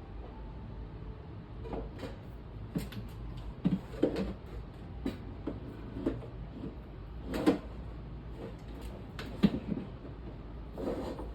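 A series of irregular knocks and clunks, some sharp and some duller, over a steady low hum.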